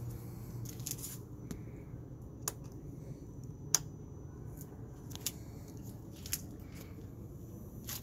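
A series of sharp clicks about a second to a second and a half apart, over a faint steady hum: the Yamaha R6's handlebar turn-signal switch being pushed.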